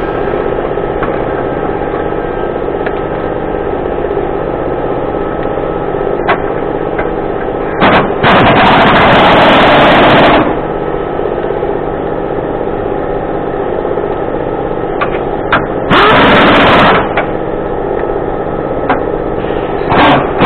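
Air impact wrench hammering in three bursts, the first about two and a half seconds long, then two shorter ones, over a steady mechanical hum, with a few clicks of tools between.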